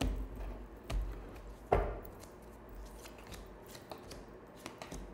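Cigano fortune-telling cards being handled on a table: a few knocks and taps, the loudest a little under two seconds in, then faint ticks and rustles.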